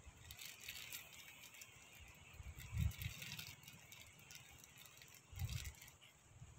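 A spinning reel being cranked, giving a faint rattling whir through much of the clip. Wind gusts on the microphone come twice, about three seconds in and again near the end.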